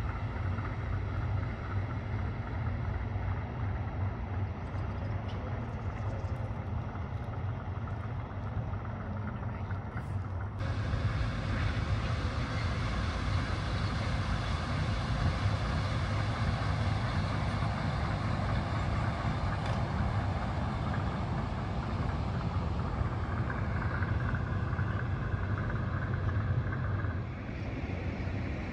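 Steady outdoor rumble of distant vehicles, with wind on the microphone. About ten seconds in it switches abruptly to a brighter, hissier noise that holds steady.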